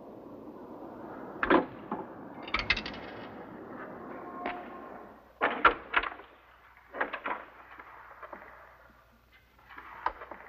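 A series of separate clunks and clicks: a payphone receiver being hung up, then a door being unlatched and opened and footsteps in a quiet room.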